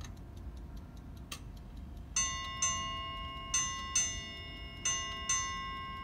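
Chelsea ship's bell clock striking its bell in three couplets, starting about two seconds in: two strikes about half a second apart in each pair, each note ringing on. This is the opening of the seven-bell strike that marks 11:30. The clock ticks faintly beneath.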